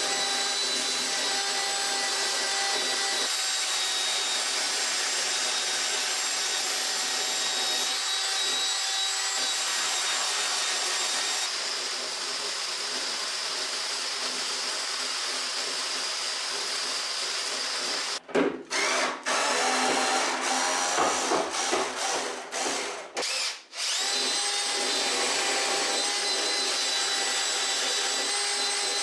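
Handheld electric power tool, drill-type, running with a steady high-pitched motor whine; about two-thirds through it stops and restarts several times in quick succession before running steadily again.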